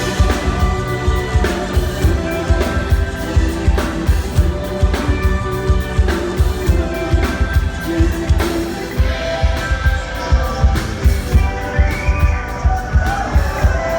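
Live band music with a steady kick-drum and bass beat under held melodic parts, the beat coming in right at the start.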